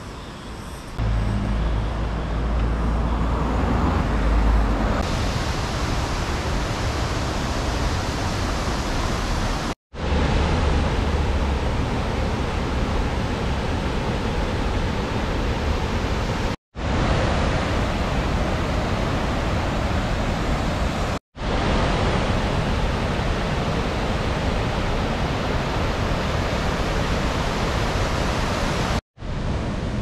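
Steady rush of river water pouring over rock ledges in a cascade, broken by a few brief silences. About a second in, a car passing through the rock tunnel adds a low rumble for a few seconds.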